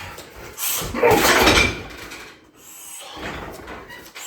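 Shin kicks landing on a 60 kg heavy bag: a heavy hit about a second in and a lighter one near three seconds.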